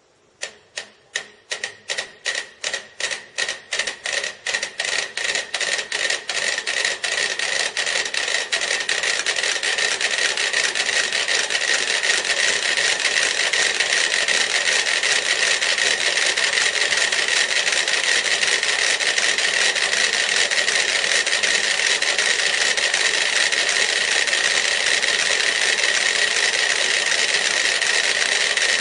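Many mechanical metronomes ticking, set going one after another: a few single ticks a second at first, thickening and growing louder over about ten seconds into a dense, continuous clatter of out-of-step ticks.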